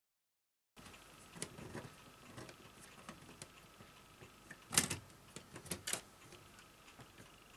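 Sheet-metal cover plate being fitted back onto the cassette loading mechanism of a Sanyo VTC-M20 Betamax recorder: light metallic taps and clicks, with a sharp click about five seconds in and two more a second later.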